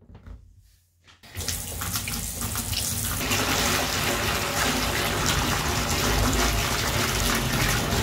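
Bath tap running full into an empty bathtub, the water splashing steadily on the tub floor; it starts abruptly about a second in.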